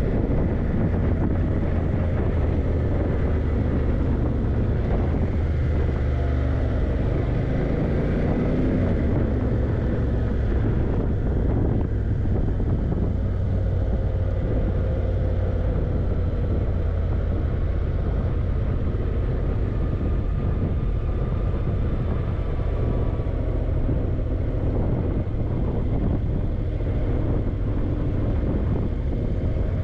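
Yamaha TDM900's parallel-twin engine running as the motorcycle is ridden, its note rising and falling with the throttle and gears, with some wind noise on the microphone.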